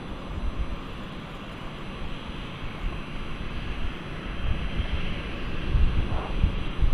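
Airliner engine noise, a steady distant rumble with a whine that grows a little stronger about five seconds in, mixed with wind buffeting the microphone.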